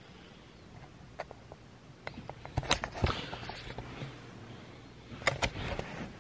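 Handling noise of a phone held close to the body while the person shifts in bed: sharp clicks and rustling of sheets and pillow in two clusters, one around the middle and one near the end, over a faint steady low hum.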